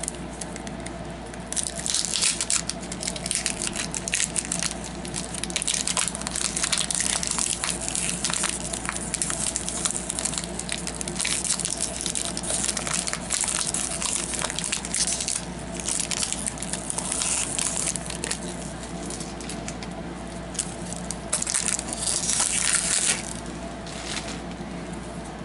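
Hockey card pack wrapper being torn open and crinkled by hand: a long run of rustling and crackling that comes and goes, loudest near the end.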